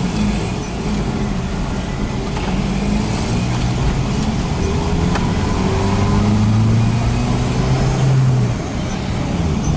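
Car engine heard from inside the cabin, pulling away and accelerating: its pitch climbs steadily for several seconds, then drops about eight and a half seconds in as the driver changes gear.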